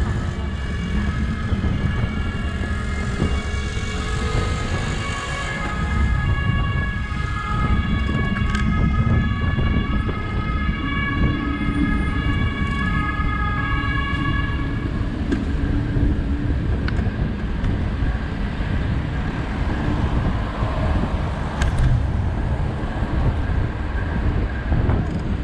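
An emergency vehicle's two-tone siren, alternating between two pitches, over a steady low rumble of street traffic; the siren fades out about fifteen seconds in.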